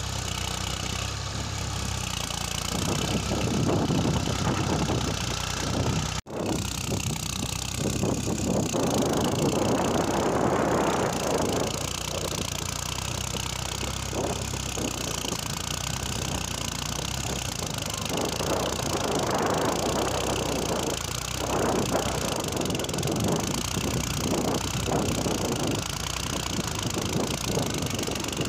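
New Holland 3630 tractor's three-cylinder diesel engine running under load as the tractor climbs a steep earth mound with its front wheels reared off the ground, the engine note swelling and easing in surges.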